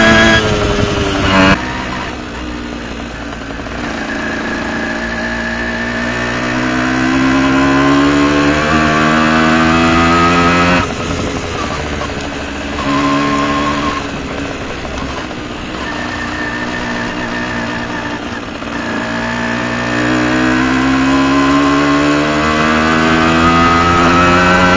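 Two-stroke engine of a Tomos ATX moped with a Dellorto 19 PHBG carburettor, revving. The revs drop at the start, climb slowly and then drop sharply twice, about eleven seconds in and again near the end, climbing again after each drop.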